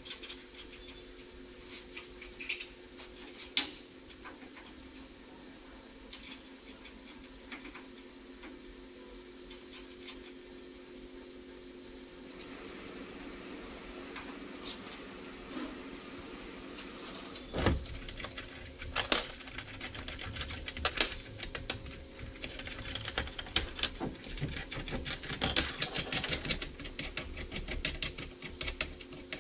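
Metal parts and hand tools clinking and clicking against the steady hum of a car repair shop. There are only a couple of clicks at first; from a little past halfway the clinks come thick and irregular, busiest near the end, as wheel spacer hardware is handled and fitted.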